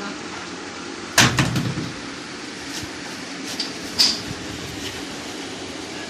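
Washing machine motor parts being handled: one heavy knock with a short clatter about a second in, then a few lighter clicks and a sharp clink about four seconds in, over steady background noise.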